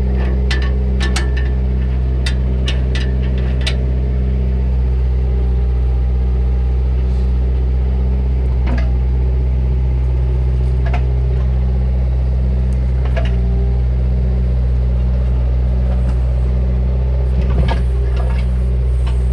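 Bobcat 331E compact excavator's diesel engine running at a steady speed, with sharp metallic clicks and clanks over it: a quick run in the first few seconds, then a few single ones.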